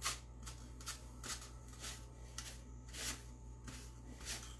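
A large paintbrush spreading white chalk paint over a styrofoam craft pumpkin: a series of short brushing swishes, about two a second.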